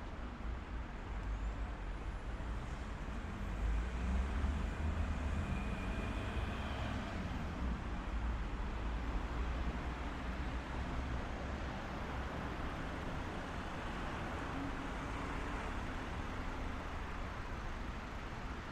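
Road traffic going by: a steady low rumble of vehicle engines and tyres that swells for a few seconds about four seconds in, as a heavier vehicle passes.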